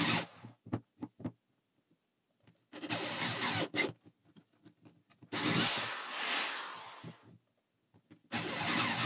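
Corded electric drill boring holes into OSB board, run in short bursts of one to two seconds with pauses between, a few brief trigger blips near the start.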